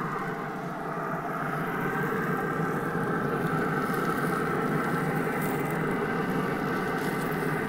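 Pit Boss pellet grill running: a steady hum and rush from its fan and pellet fire under the cooking grate.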